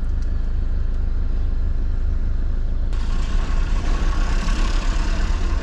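Camper's engine running with a steady low hum; about three seconds in, a loud rushing hiss starts suddenly and continues alongside it.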